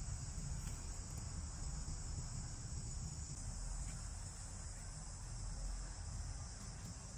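Steady, high-pitched outdoor insect chorus that holds one even pitch throughout, over a low rumble.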